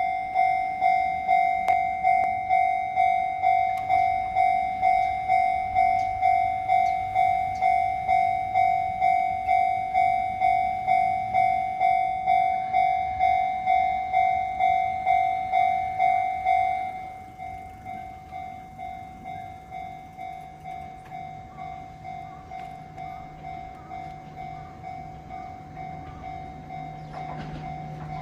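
Japanese level-crossing electronic warning bell on the Enoden line ringing about twice a second, then dropping to a much quieter level about 17 seconds in while it keeps ringing. A low hum joins about 20 seconds in, and a louder rushing noise comes near the end as a train approaches.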